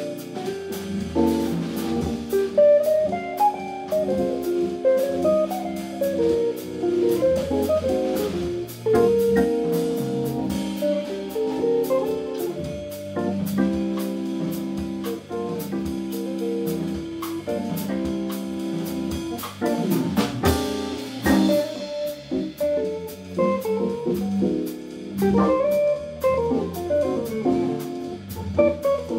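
Live jazz organ trio playing: guitar and organ over a drum kit, with sustained organ chords and guitar lines under steady drum and cymbal strokes.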